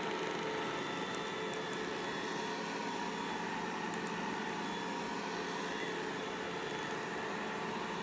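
Mamibot robot vacuum cleaner running in automatic cleaning mode: a steady hum of its suction fan and brushes with a faint motor whine as it turns and drives off across the floor.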